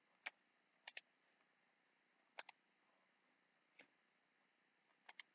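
Computer mouse clicking against near silence: a single click, three quick double clicks and one softer click, spread out.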